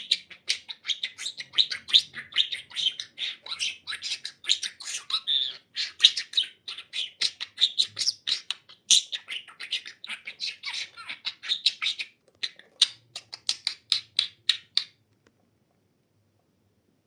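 Budgerigar warbling and chattering: a rapid, continuous stream of chirps, clicks and squawks that stops abruptly about fifteen seconds in.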